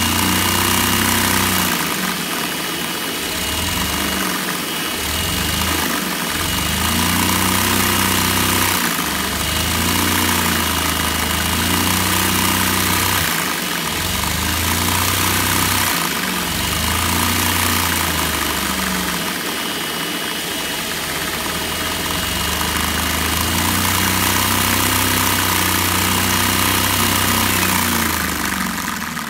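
Homemade Lego vacuum engine running with its big flywheel: a steady mechanical drone with a rattling clatter, under a thin high whine. The whine slides down in pitch and the sound starts to fade near the end.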